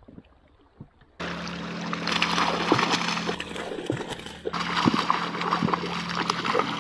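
Water splashing and sloshing close by, starting suddenly about a second in: a hooked rainbow trout thrashing at the surface beside the raft.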